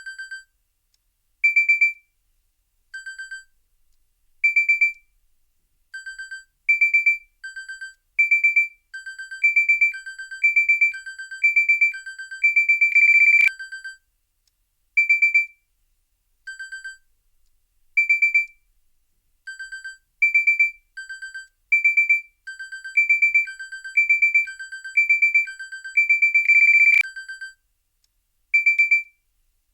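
Electronic alarm beeper: short beeps alternate between a lower and a higher pitch, come faster and faster, and merge into one long beep. The pattern then starts over, twice in all.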